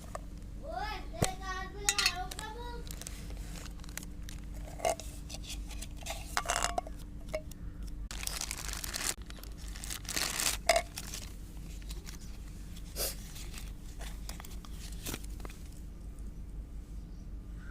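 Packaging being handled, crinkled and torn open, with scattered clicks and two longer stretches of crinkling about eight and ten seconds in. A short voice sounds in the first few seconds, and a faint steady hum runs underneath.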